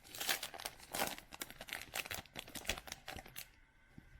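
Wrapper of a baseball-card pack being torn open and crinkled: a dense run of sharp crackles that stops about three and a half seconds in.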